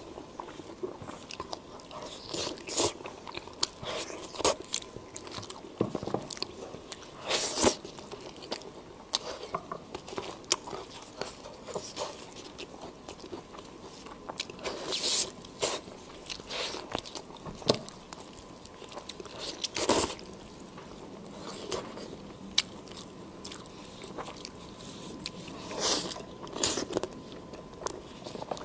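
Close-miked eating sounds: roast chicken being bitten into, torn by hand and chewed, in irregular wet bites and chews with a few louder crunchy bites spread through.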